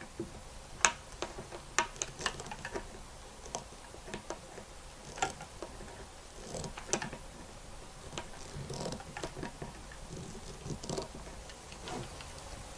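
Irregular light clicks, taps and rustles of hands working a shielding sleeve over the shield of an AGL primary cable and compressing it.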